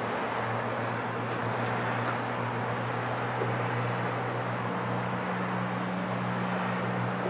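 Outdoor city ambience: a steady wash of distant traffic noise with a low, steady hum underneath and a couple of faint hisses early on.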